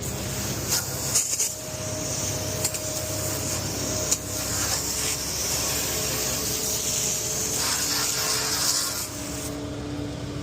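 Water hose spraying hard onto a concrete mixer truck during washout, with the truck's engine humming steadily underneath. The spray cuts off near the end.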